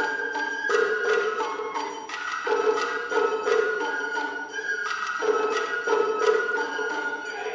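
Japanese festival ohayashi music: a bamboo flute melody over quick, steady strikes on small shime-daiko drums.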